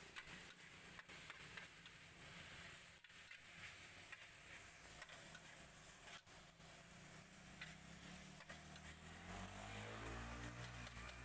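Metal spatula clicking and scraping against a large steel wok as fried noodles are stirred, over a steady low hum. A low engine-like drone swells near the end.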